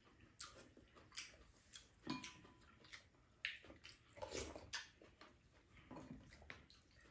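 Faint eating sounds: slurping and chewing of a soupy tofu and mung-bean-sprout stew, with a few light clicks of spoons and chopsticks against bowls.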